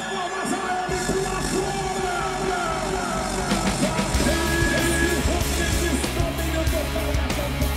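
Rock music with a shouted, sung vocal; a heavy bass and drum beat comes in about four seconds in.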